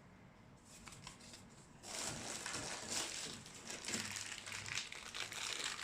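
Crinkling and rustling of packaging as a small envelope is handled and opened, starting about two seconds in after a near-quiet start.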